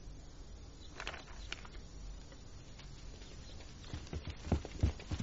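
Soft, irregular footsteps thudding on a wooden floor near the end, after a couple of light clicks about a second in, over a quiet room background.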